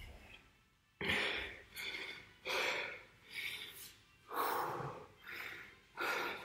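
A man breathing hard and fast, out of breath from an all-out workout. After a quiet first second come heavy, gasping breaths, a little more than one a second.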